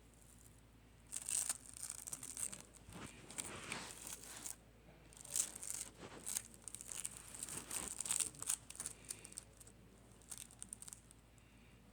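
Slime being squished and stretched by hand, in a run of irregular, uneven bursts of sound from about a second in until near the end.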